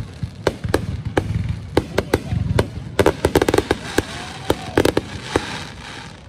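Fireworks display: a rapid, irregular string of sharp bangs and crackles from aerial shells bursting, thickest about three and five seconds in.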